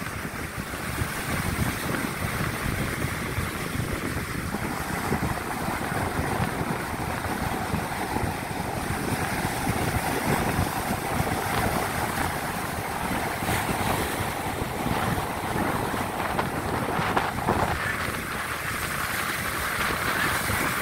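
Ocean surf breaking on a sandy beach, a steady wash of rolling waves, with wind buffeting the microphone.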